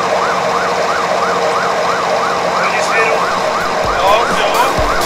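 A siren wailing in quick, even sweeps, its pitch rising and falling about three times a second. A few low thumps join in near the end.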